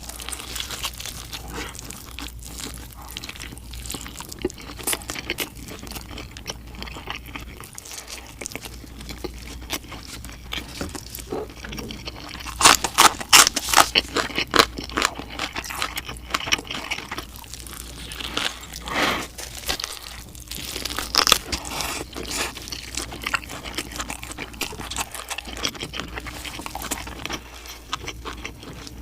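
Close-miked eating: bites crunching and chewing in an irregular run, with the loudest stretch of crunching about twelve to fourteen seconds in.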